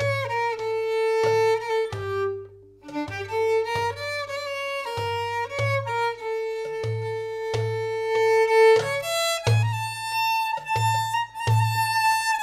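Violin playing a klezmer dance tune in long held notes with slides between them, over hand drums beating a steady low pulse.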